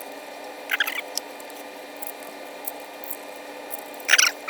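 Small-parts handling noise as a laptop is worked on by hand: two short scraping squeaks, one about a second in and a louder one near the end, with a few light clicks, over a steady electrical hum.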